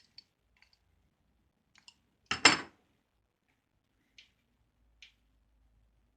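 Light metal clicks and one short, loud clatter about two and a half seconds in, then two faint ticks, from handling a small bench-mounted wire stripper and a piece of scrap copper wire.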